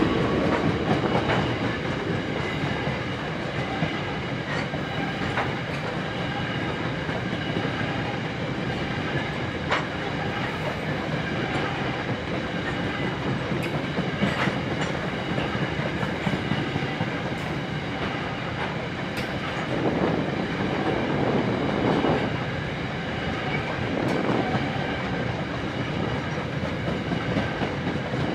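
A long rake of CET coal hopper wagons rolling past at steady speed. It makes a continuous rumble, with scattered sharp clicks and clacks from the wheels and couplings.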